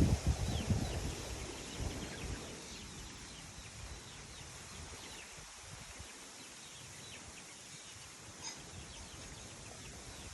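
Outdoor ambience: wind rumbling on the microphone for the first couple of seconds, then fading away, with small birds chirping in short falling notes throughout.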